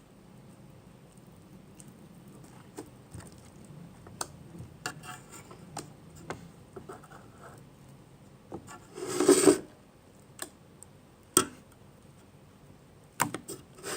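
Hands squishing and stretching soft, stretchy homemade slime: scattered sticky clicks and crackles, with one louder, longer squish about nine seconds in.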